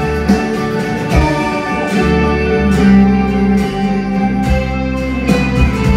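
Acoustic guitar strummed live, its chords ringing on with a strum every second or so.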